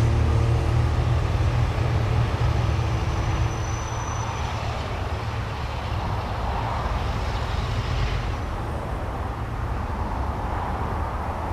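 Diesel locomotive engine working under load, a heavy low rumble with a noisy clatter over it. It grows quieter over the first few seconds and then runs on steadily. A thin high tone sounds for about two seconds a few seconds in.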